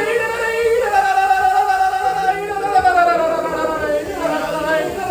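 A high voice singing long, drawn-out notes that slide slowly in pitch, with a short dip about four seconds in before the next note.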